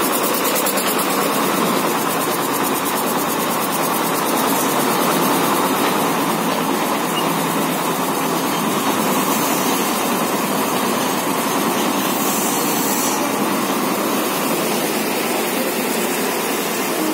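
Diesel engine of a Sri Lankan diesel multiple-unit commuter train (power set) running with a steady, unbroken drone.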